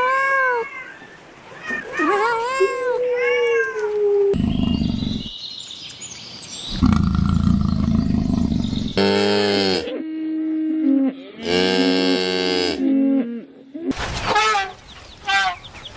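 A string of different animal calls cut one after another: pitched, arching calls, then a low rough call, then deeper pitched calls, and quick repeated chirps near the end.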